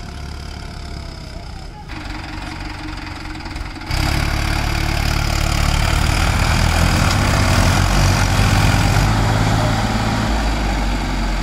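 Diesel farm tractor engine running in a muddy paddy field, with a steady low drone that gets abruptly much louder about four seconds in.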